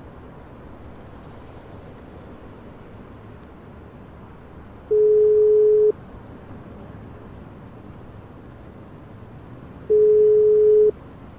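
Telephone ringback tone: two one-second beeps of a single steady pitch, about five seconds apart, the sound of a call ringing out at the other end and not yet answered. A steady hiss runs underneath.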